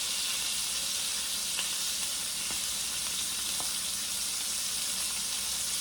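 Tri-tip steaks sizzling in butter in a frying pan: a steady hiss with a few faint pops.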